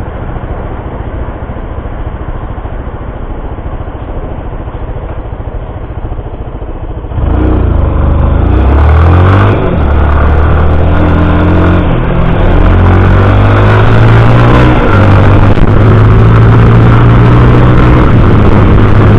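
Honda CB650's inline-four engine, loud, running steadily at first, then opening up sharply about seven seconds in and accelerating hard, its pitch stepping through several gear changes.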